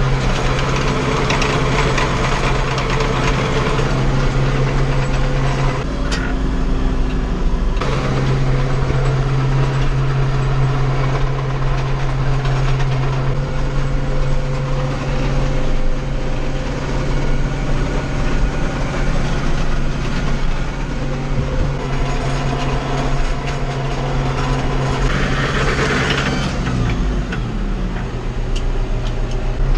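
Tractor diesel engine running steadily at working revs. Near the end the revs drop, then begin to climb again.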